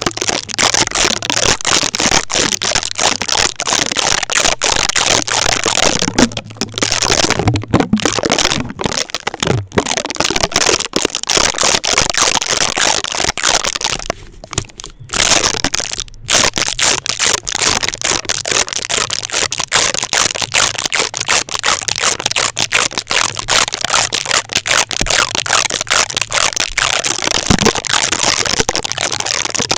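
Adhesive tape rubbed, pressed and peeled directly on a microphone, fast and aggressive: a loud, dense stream of crackles and sharp clicks, with a few brief pauses about a quarter and halfway through.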